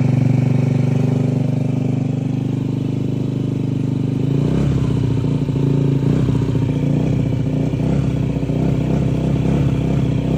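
2003 Honda Ruckus scooter engine running after being kickstarted, the first run after a no-start. It runs steadily at first, then from about four seconds in it turns uneven and pulsing.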